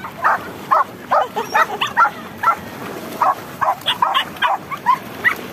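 Dogs barking in short, sharp, high yips, about a dozen barks coming irregularly, two or three a second.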